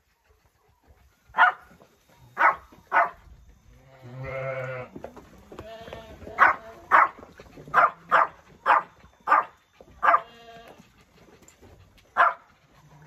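Sheep bleating, with one longer bleat about four seconds in, among about a dozen short, sharp barks from a dog.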